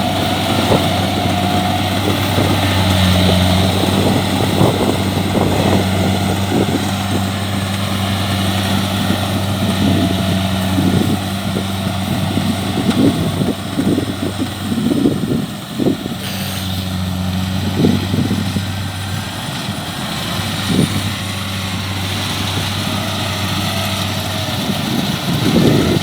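Kubota DC-70 combine harvester's diesel engine running steadily at a constant low pitch, with irregular rattles and knocks from the machine, and a brief dip in the engine note about two thirds of the way through.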